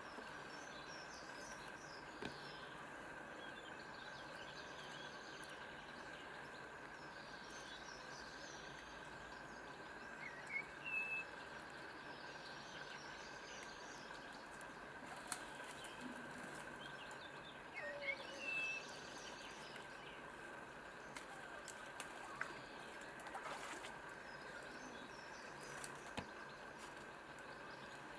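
Faint birdsong over a steady background hiss, with short high chirps twice, about ten and eighteen seconds in, and a few small scattered clicks.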